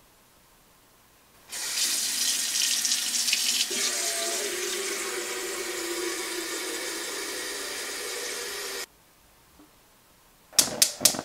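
Water running from a kitchen faucet into a stainless steel kettle for about seven seconds, then cut off suddenly. Near the end, a gas stove's igniter clicks four times in quick succession as the burner is lit.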